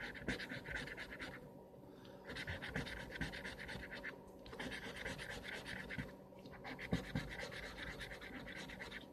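Scratch-off lottery ticket being scratched, rapid scraping strokes across its coating in four runs with short pauses between.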